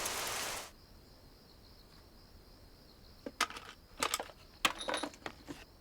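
Heavy rain pouring that cuts off abruptly under a second in. It gives way to a faint steady high-pitched hum and, from about three seconds in, a series of sharp clicks and taps.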